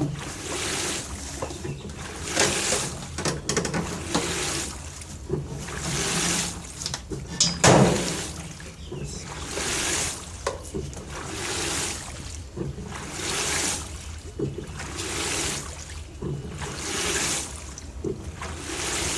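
LG TurboDrum WT-R852 top-loading washing machine with a full load of bedding, early in its wash: water swishing and splashing in surges about every two seconds, with one louder thud about eight seconds in.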